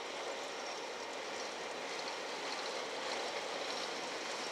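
Enclosed autorack freight cars rolling past, a steady noise of steel wheels on the rails.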